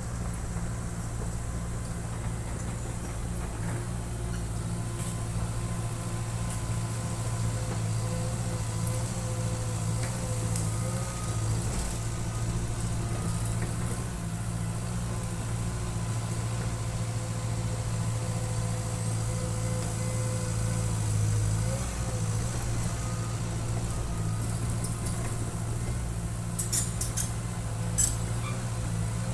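Caterpillar crawler dozer's diesel engine running steadily as the machine moves with its blade down. A few sharp clicks come near the end.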